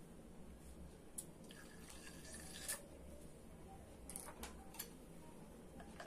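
Quiet room tone with a few faint, short clicks and taps from small plastic utensils being handled at a pitcher of liquid soap.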